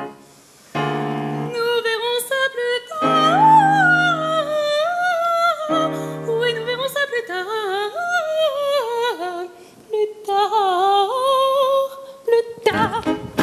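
A high voice sings an operetta melody with vibrato over piano accompaniment. The piano comes in with sustained chords about one, three and six seconds in.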